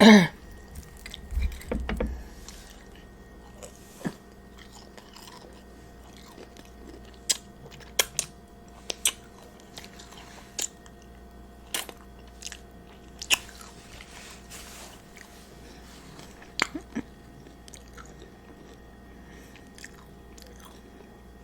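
Close-miked eating: biting and chewing fried chicken, with sharp crunches scattered every second or two.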